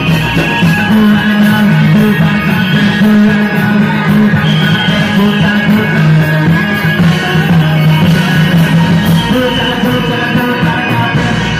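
Loud reog accompaniment music with singing, played through loudspeakers, moving in long held notes.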